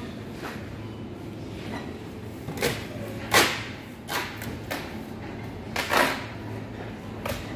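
Steady low hum of a shop with a run of short knocks and clatters, the loudest about three and a half and six seconds in.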